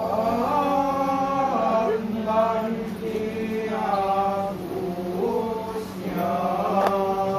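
A ritual chant sung in long, drawn-out phrases that slide between held notes, over a steady low hum.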